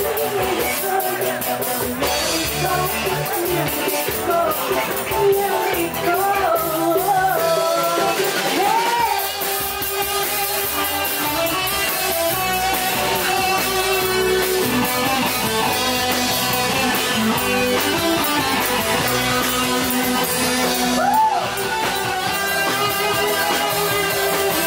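Live dangdut band music: a woman singing a wavering, ornamented melody into a microphone over electric guitar and drums, played loud through the stage speakers.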